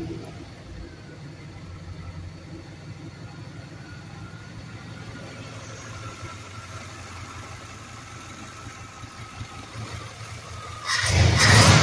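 A 1989 Chevy pickup's freshly built, throttle-body-injected roller-cam engine idles steadily just after start-up. Near the end it is suddenly revved up at the throttle.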